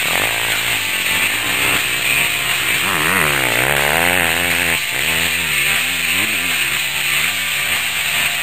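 Motocross bike engines revving up and down as the riders accelerate and back off, the pitch rising and falling again and again, with a deep dip and climb about three to four seconds in.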